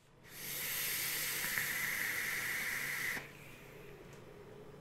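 A long draw on a Wotofo Ice 3 rebuildable dripping atomiser: air hisses steadily through its top airflow for about three seconds, then stops abruptly. A much quieter breathy hiss follows as the vapour is exhaled.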